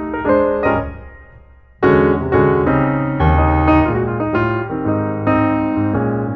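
Background piano music. A run of notes dies away about a second and a half in, then the music comes back in loudly with a busy run of notes and chords.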